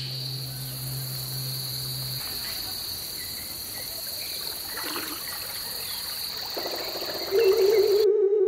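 Steady high-pitched insect chorus, a continuous drone. Near the end a held, wavering musical note comes in and the insect sound cuts off.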